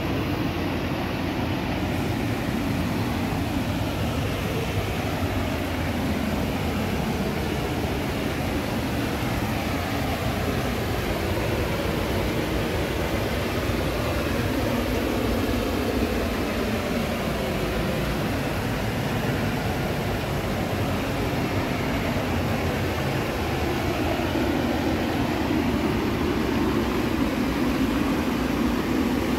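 Steady rush of river water pouring over a low weir, a little louder near the end.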